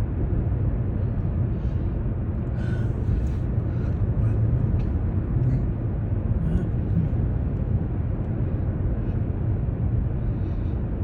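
Steady road noise of a moving car heard from inside the cabin: a low, even tyre and engine rumble.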